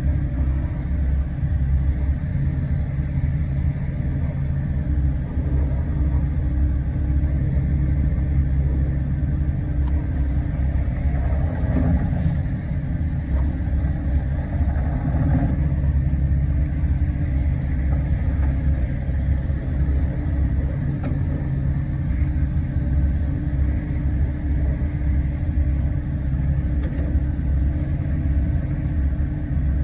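Diesel engine of a Volvo ECR88D compact excavator running steadily with a deep rumble, with a few seconds of extra mechanical sound around the middle.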